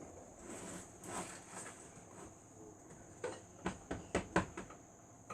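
Several light clicks and knocks in quick succession in the second half, over a faint low background: objects being handled.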